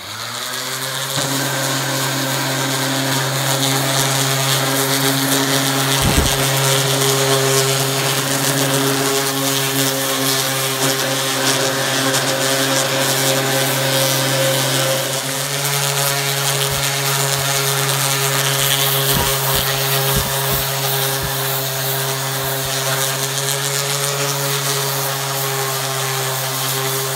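DeWalt random orbital sander with 220-grit paper switched on and running steadily against a wooden axe handle: a steady motor hum with the hiss of abrasive on wood, and a few brief low knocks.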